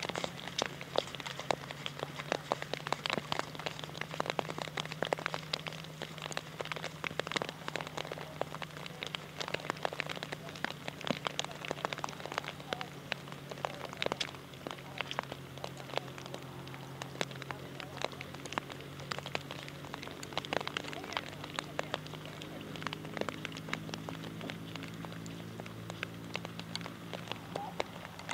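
Rain pattering, a dense run of irregular ticks, over a steady low hum.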